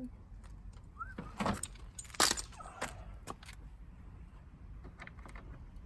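A few light metallic clicks and jangles, with one sharp knock about two seconds in that is the loudest sound.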